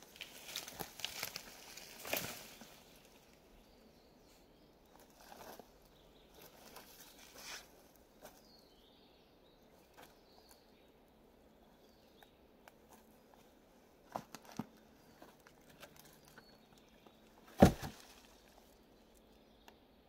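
Dry sticks and branches being pulled aside and dropped: rustling and cracking for the first few seconds, scattered clicks and knocks after that, and one loud sharp knock about three-quarters of the way through.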